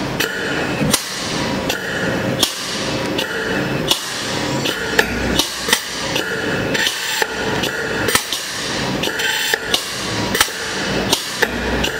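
Graco T2 air-operated transfer pump on the isocyanate drum running, its air motor knocking sharply about twice a second with bursts of hiss between strokes. It is recirculating the iso to push air out of the system.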